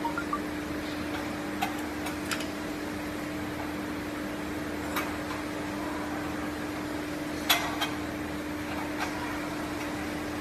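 Pneumatic spot welding machine running with a steady electrical hum, with a few scattered sharp clacks, the loudest about seven and a half seconds in.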